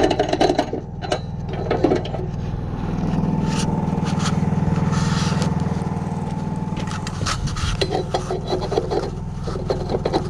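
An engine running steadily with a low drone that swells louder for a few seconds in the middle. Bursts of clattering and scraping come near the start and again near the end.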